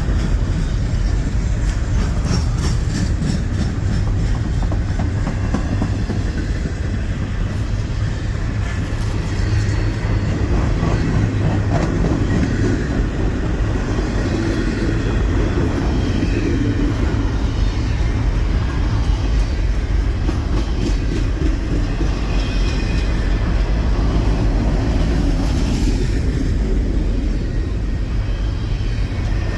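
Freight train of loaded trash cars rolling past: a steady heavy rumble with the clickety-clack of wheels over the rail joints.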